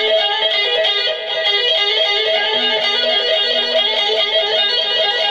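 Electric guitar playing fast tapped arpeggios, a quick cycle of a few notes repeated over and over.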